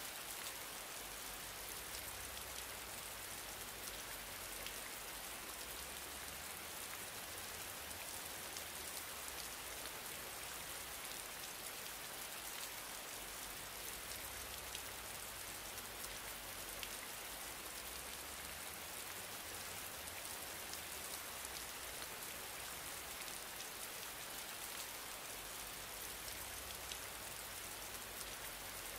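Steady rain-like hiss with faint scattered crackles, unchanging, with no speech.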